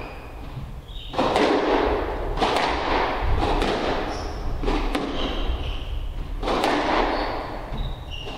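Squash rally: the hard rubber ball is struck by rackets and smacks off the court walls, with sharp echoing hits about a second apart. Short squeaks from the players' shoes on the wooden floor come between the hits.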